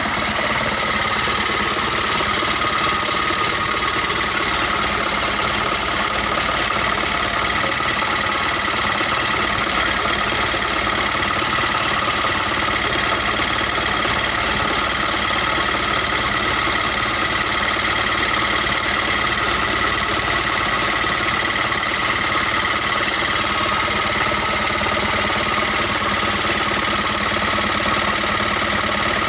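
Diesel engine of a 2001 Mitsubishi Colt Diesel truck idling steadily, with no revving.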